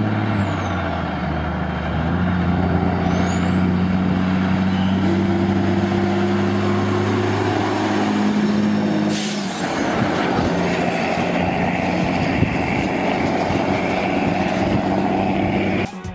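Diesel engine of a livestock road train driving past, running steadily, its pitch stepping up and down a few times. A sudden sharp hiss of air comes about nine seconds in.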